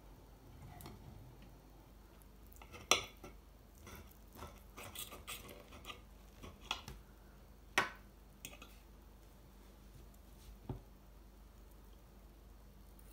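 Metal knife and fork clinking and scraping against a ceramic plate while cutting food: scattered sharp clinks, the loudest about three seconds in and another near eight seconds.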